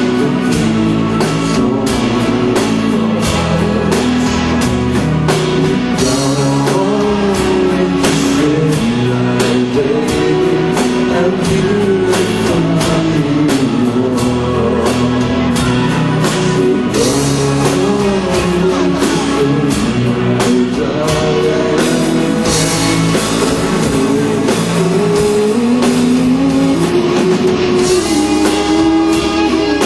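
Live rock band playing: a male lead vocal over guitars, keyboards and drums.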